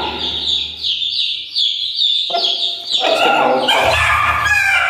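Young Aseel chicks, about 20 days old, peeping over and over: short, shrill, falling peeps about three a second, the calls of frightened chicks. In the second half the phone is jostled, adding a low rumble and rough handling noise.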